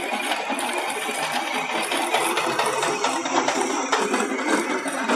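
Tractor-mounted chain trencher digging through stony soil: a steady, rapid mechanical clatter of the cutting chain and the tractor's engine.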